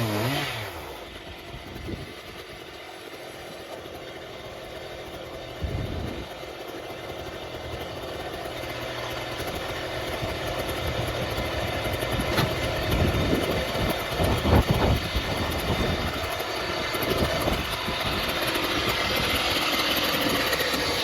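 Stihl MS880 big two-stroke chainsaw on an Alaskan-style Logosol F2 mill coming off full throttle as the cut finishes, its engine note falling away in the first second. It then idles, with a few knocks and rattles about six and fourteen seconds in.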